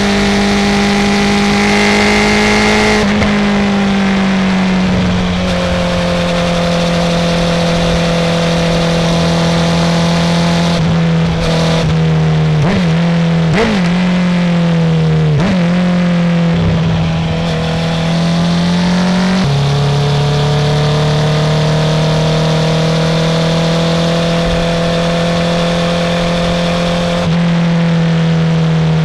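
Honda CB650R's inline-four running through a full Akrapovic titanium exhaust while riding, holding steady revs with a few gear changes. In the middle there is a quick run of revs rising and falling, and about two-thirds of the way in the revs drop and then hold steady again.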